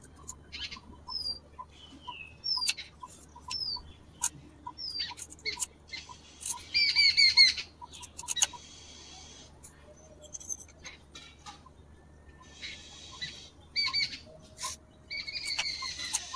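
Kitchen knife cutting a red onion on a small wooden chopping board, with scattered sharp taps of the blade on the wood. Birds chirp and twitter throughout, loudest in a burst of song about seven seconds in.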